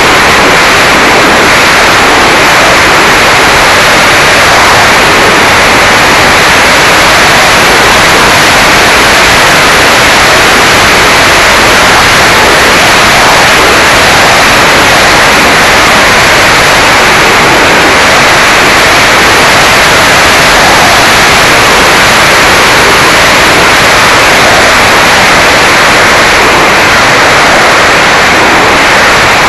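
Loud, steady rushing hiss picked up by a mini Mobius camera's microphone aboard a Mini Talon RC plane in flight: airflow and motor noise blended into an even roar with no distinct tone.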